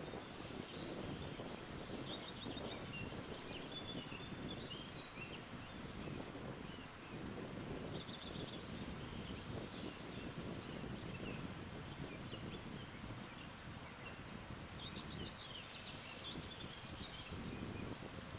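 Wind blowing with a steady low rumble, with small birds chirping and trilling high above it in several short bouts.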